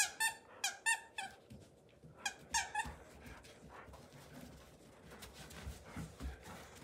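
Squeaker in a red plush dog toy squeaking about seven times in two quick runs as a golden retriever chomps it: five squeaks in the first second or so, two more a second later, then only faint thumps of paws.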